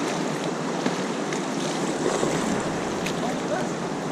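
Steady rush of river water around an inflatable raft.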